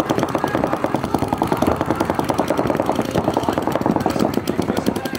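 Paintball markers firing rapidly, a continuous stream of closely spaced, overlapping shots from several guns at once.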